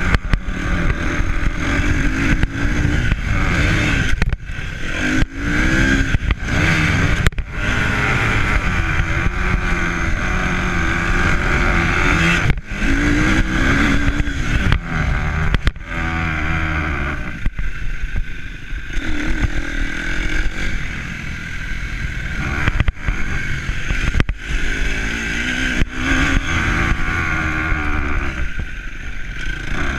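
A motor engine running, its pitch rising and falling, under heavy wind rumble on the microphone.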